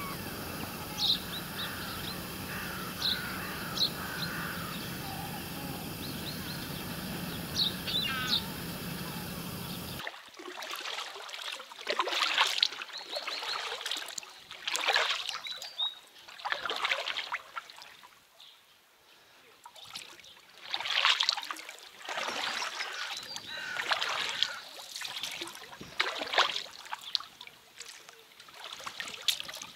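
Birds chirping over a steady outdoor hiss. About a third of the way in this cuts abruptly to water splashing and swishing in regular strokes every two to three seconds, as a small boat is rowed through the water.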